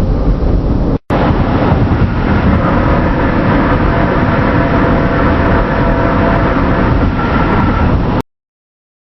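Loud, steady car rumble: deep road-and-engine noise with faint humming tones, passed off as an unexplained 'weird sound' from the sky. It drops out for an instant about a second in and cuts off suddenly near the end.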